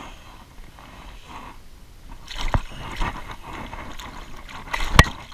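Water splashing and sloshing as a hooked largemouth bass is brought in, with two sharp knocks, the louder one near the end.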